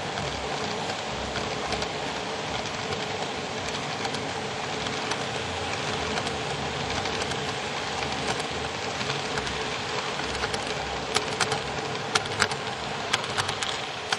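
N scale freight cars (Micro-Trains box cars and tank cars) rolling past at speed on model railroad track, a steady rushing clatter of small wheels on rail. Several sharp clicks come in the last few seconds, and the sound drops off as the end of the train passes.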